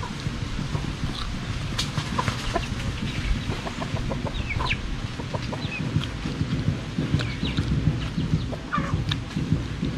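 Chickens clucking in short, scattered calls over a steady low rumble, with small clicks throughout.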